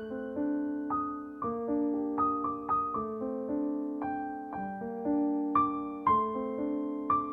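Background piano music: a slow, gentle melody of struck notes, about two a second, each ringing and fading.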